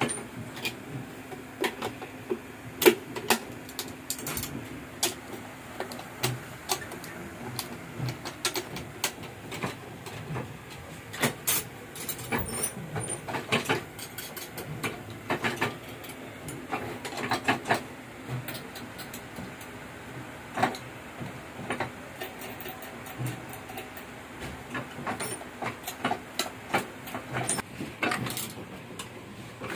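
Hamada 600 small offset press running: a steady mechanical hum with many irregular metallic clicks and clacks from its rollers and moving parts.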